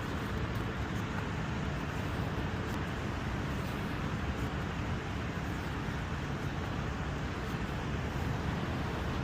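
Steady, even background hiss and rumble with no distinct events, like outdoor traffic noise.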